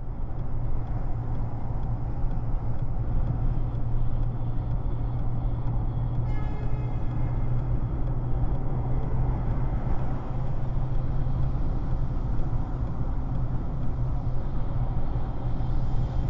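Steady road and wind noise of a car cruising at highway speed, about 70 mph, heard from inside the cabin. The low rumble stays even throughout, and a few faint high tones come in briefly about six seconds in.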